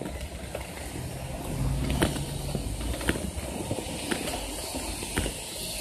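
Small scooter wheels rolling on a concrete sidewalk: a steady low rumble with a sharp click about once a second as the wheels cross the slab joints.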